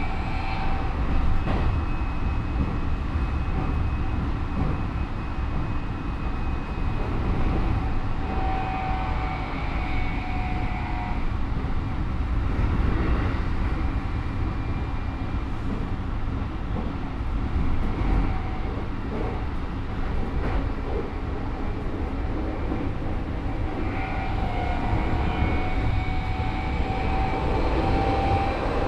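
Keikyu 1000 series electric train with a Mitsubishi IGBT VVVF inverter running at speed: steady wheel-on-rail rumble, with the traction motor whine coming and going, strongest near the start, about a third of the way in and near the end. The motor sound of this car is unusually loud, much like the early GTO-inverter cars.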